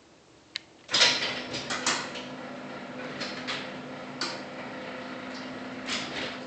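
Chamberlain garage door opener clicking on about a second in, then its motor running with a steady hum while the door moves, with several knocks along the way.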